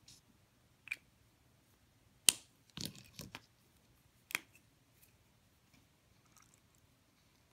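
Clear plastic water brush pens being handled: a few sharp plastic clicks and taps, the loudest a little over two seconds in, followed by a short clatter and one more click about four seconds in.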